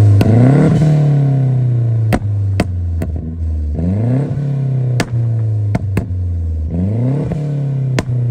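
MazdaSpeed3's turbocharged 2.3-litre four-cylinder, exhausting through a catless Corksport downpipe and near-straight-piped exhaust, revved up and let fall three times. Sharp, loud pops crack out as the revs drop.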